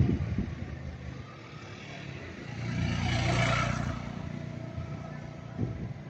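A motor vehicle passing by: its engine hum and road noise swell about three seconds in and fade again.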